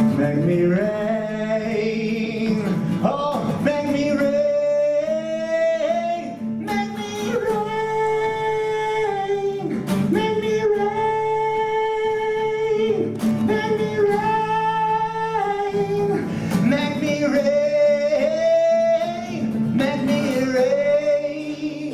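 A man singing long held notes, some sliding between pitches, over a strummed acoustic guitar.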